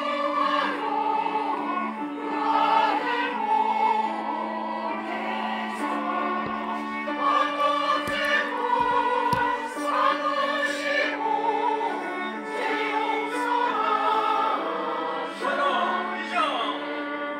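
Church choir rehearsing a hymn, singing held phrases over steady sustained low notes.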